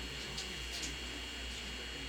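Steady electrical hum with a faint high whine from the equipment of an Izuhakone Railway 3000 series electric train standing at a station, with a couple of faint ticks and distant murmuring voices.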